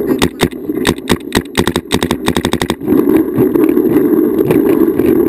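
Paintball marker firing close to the microphone: scattered shots, then a fast string of about ten shots a second for a little over a second. From about three seconds in, a steady low rushing noise of movement and wind on the microphone takes over as the shooting stops.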